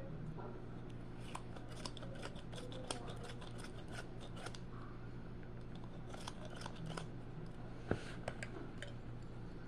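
Scattered light clicks and taps over a steady low hum, with one sharper knock about eight seconds in.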